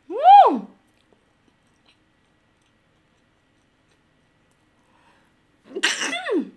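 A woman sneezes near the end: a sudden burst of breath falling into a voiced, downward-sliding sound. At the very start there is a short vocal sound that rises and falls in pitch. Her sneezing is brought on, she says, by very spicy nuclear fire noodle sauce.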